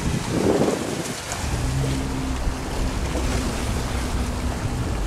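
Motorboat running under way on open sea: a steady low engine drone under rushing water and heavy wind buffeting on the microphone.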